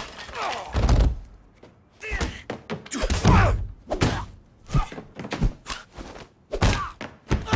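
Film fight sound effects: an irregular run of punches and kicks landing as sharp smacks and heavy thuds. The heaviest blows land about a second in, around three seconds in, and near the end.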